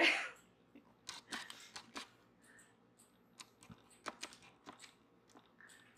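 Knitting hook and yarn on a circle loom: scattered light clicks and scratches as loops are lifted over the pegs.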